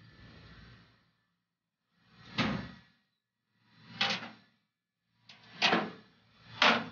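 Metal sliding and clanking from a recovery truck's manually operated sliding flatbed as it is worked: four short slides, each ending in a sharp clank, about one to two seconds apart.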